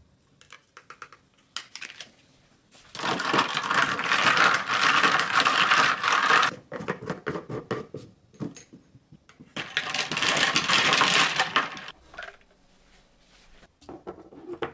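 Ice cubes rattling inside a lidded mason-jar tumbler as it is shaken to mix powdered berry kombucha into the water. The shaking comes in two bouts of about three seconds each.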